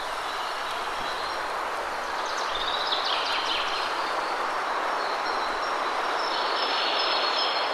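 Waterfall rushing steadily, with birds chirping over it and a quick flurry of chirps about a third of the way in.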